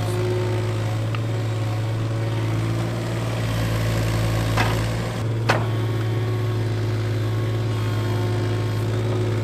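Case CX17C mini-excavator's diesel engine running steadily while it digs a trench, with two sharp knocks about halfway through.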